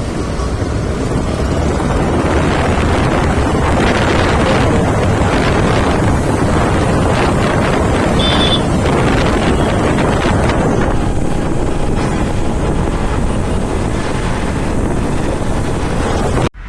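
Wind buffeting the microphone over the steady running noise of a vehicle on the move, which cuts off suddenly near the end.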